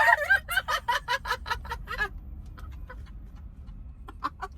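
A woman laughing hard in rapid, high, breathy pulses, about six a second. The laugh fades after about two seconds and picks up again near the end.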